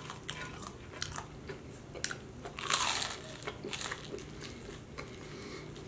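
Crispy fried chicken crunching as it is bitten and chewed close to the microphone: a string of sharp crackles, loudest a little under three seconds in.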